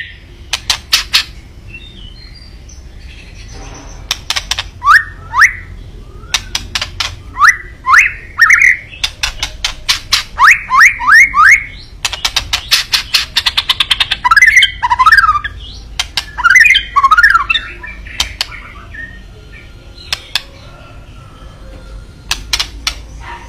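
White-rumped shama giving its 'kretekan' call: runs of sharp, rattling clicks mixed with short rising whistles, in loud bursts with short pauses between them, growing quieter over the last few seconds.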